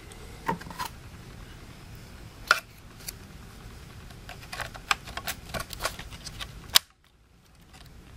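Laptop SO-DIMM RAM modules being fitted into their memory slots: a series of short plastic and metal clicks and taps. A sharp click comes about two and a half seconds in, and the loudest near the end, as a module is seated and snaps into its retaining clips.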